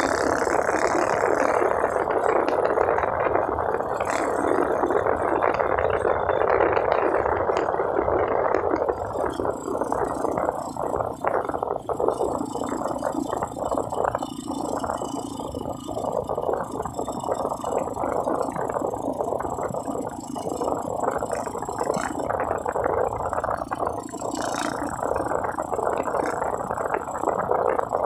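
Steady rattling rush of a motorcycle on the move, with no clear engine note; louder for the first nine seconds or so, then a little quieter.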